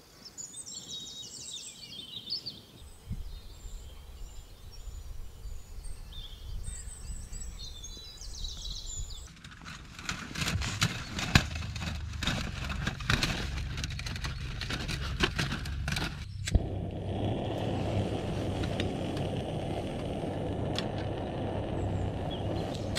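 Birds singing over light wind, then metallic clinking and clattering as a folding aluminium windshield is set around a small gas canister stove. About sixteen seconds in the stove's burner is lit and then hisses steadily under a metal pot.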